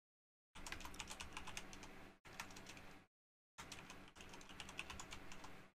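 Typing on a computer keyboard: rapid key clicks in two runs, with a short break about three seconds in.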